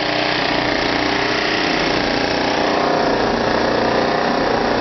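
An engine or motor running steadily at constant speed: a continuous even drone that does not change pitch.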